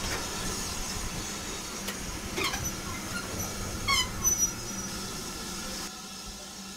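Railway carriages rolling past close alongside, a steady rumble and rattle with short squeaks from the wheels and running gear around two and a half and four seconds in. The noise drops about six seconds in as the last carriage clears.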